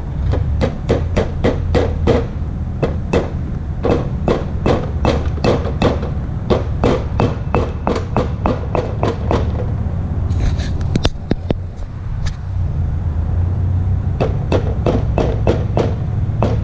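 Small hammer tapping lightly and repeatedly, about three strikes a second, driving a greased wheel-hub bearing part evenly onto the spindle. The tapping pauses for a few seconds about two-thirds of the way through, then resumes, over a steady low hum.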